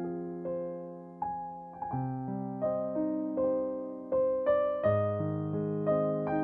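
Background piano music: slow melody notes over held chords, each note struck and fading away.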